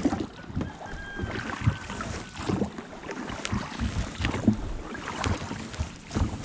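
A small boat being rowed: irregular knocks and thuds of the oars and hull with water sounds, and a brief squeak about a second in.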